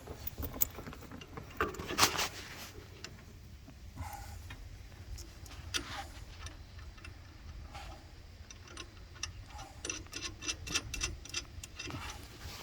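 Scattered small metal clicks and knocks as a circulator pump and its flange bolts are handled and fitted, with a louder knock about two seconds in and a quick run of clicks near the end.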